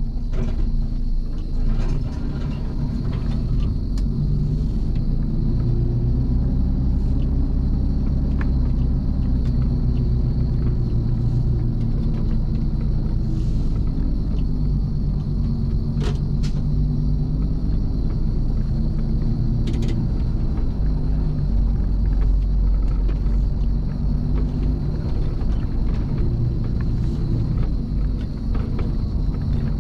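Mercedes Actros truck's diesel engine droning steadily at low revs, heard from inside the cab as it drives over a rough quarry track, with a few sharp clicks.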